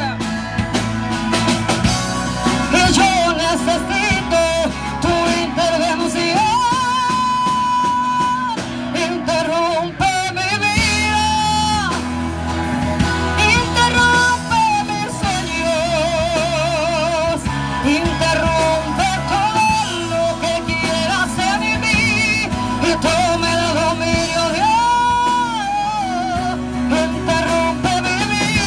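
Live worship music: a woman singing held notes with vibrato, backed by a band with guitar and drums through a PA.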